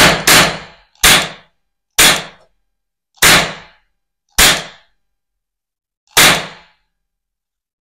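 Toy cap-gun revolver firing plastic ring caps: seven sharp bangs, the first two close together, then roughly a second apart, slowing with a longer gap before the last.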